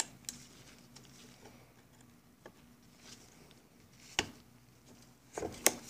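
Channellock hose clamp pliers working an old hose clamp on a rubber fuel line: a few separate sharp metal clicks, with a pair near the end the loudest.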